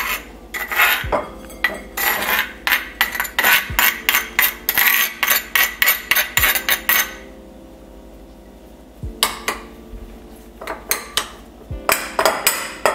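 Metal spoon scraping and knocking against a stone cobek mortar and a glass bowl as pounded tempeh is scraped out: a quick run of clinks and scrapes that pauses about seven seconds in and starts again two seconds later.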